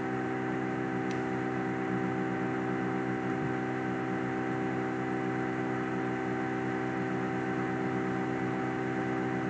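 Steady electrical mains hum, a buzz made of a stack of even tones, with one faint click about a second in.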